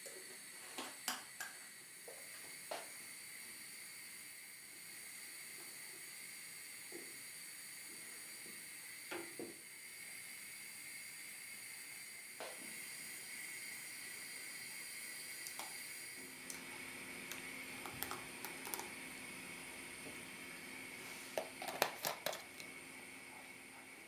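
A pot of lentil soup cooking on a gas hob with a steady hiss, and scattered light knocks and scrapes of a wooden spoon against the pot as it is stirred. The hiss gets stronger about two-thirds of the way in.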